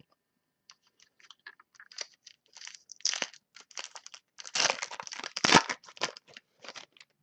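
A foil trading-card pack wrapper crinkling and tearing as it is opened by hand, in short irregular crackles, busiest and loudest a little past the middle.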